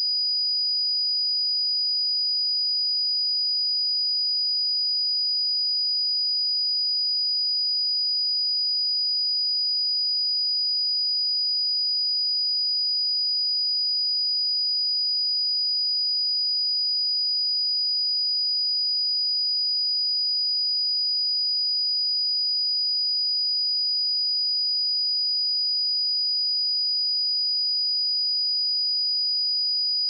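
A pure, steady 4925 Hz sine-wave test tone, a single high-pitched whistle-like pitch held at constant loudness with no other sound.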